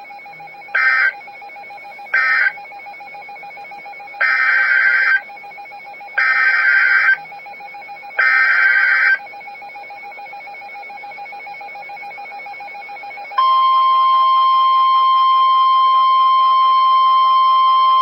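Emergency Alert System SAME data bursts: two short end-of-message bursts close off the previous warning, then three roughly one-second header bursts about two seconds apart announce the next alert. About 13 seconds in, a loud steady attention tone starts and holds.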